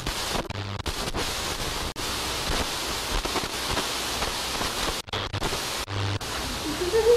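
Steady static-like hiss, broken by a few brief dropouts, one of them just after five seconds in.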